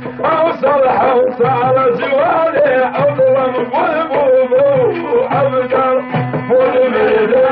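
Kurdish folk song recording in Middle Eastern style: an ornamented melody that wavers in pitch, over a steady held low tone and a regular low beat.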